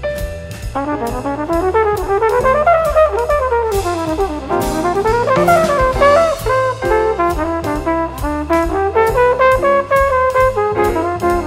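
Jazz combo instrumental solo: a horn plays fast runs that climb and fall, then settles into held notes. Double bass and a drum kit with a steadily struck ride cymbal play underneath.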